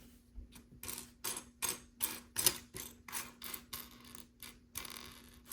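Plastic LEGO pieces clicking and rattling as they are handled, a quick run of small sharp clicks several a second, loudest about two and a half seconds in.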